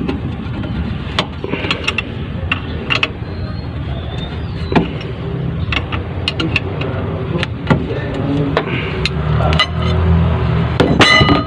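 Hand wrench working the power steering pump's belt adjustment bolt as the belt is tightened: scattered sharp metallic clicks and clinks, with one louder ringing clink near the end, over a steady low rumble.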